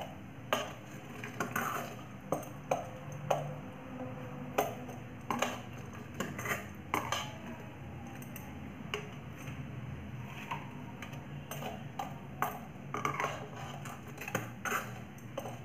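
A flat steel spatula clinking and scraping against a metal kadhai, irregular light knocks about every second, some ringing briefly, as fried bread slices are turned in sugar syrup and lifted out.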